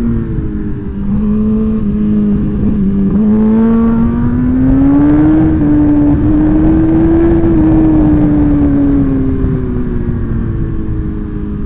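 Suzuki GSX-R1000 inline-four sportbike engine under way, heard from the bike with wind rush. The engine note climbs from about three seconds in, holds high, then falls away and settles to a steady lower note near the end.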